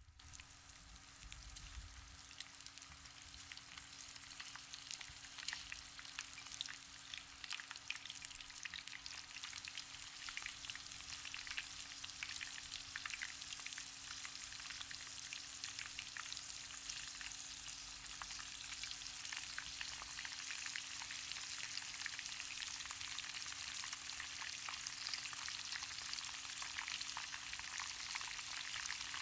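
Panko-breaded shrimp deep-frying in about 3 cm of salad oil at 180°C: a dense, crackling sizzle that starts suddenly, builds over the first several seconds and then holds steady.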